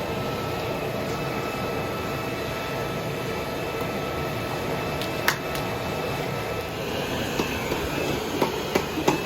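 Steady rushing noise of a coal forge fire burning hot while the work heats. A single sharp click about five seconds in, and light scattered knocks and clinks from about seven seconds on.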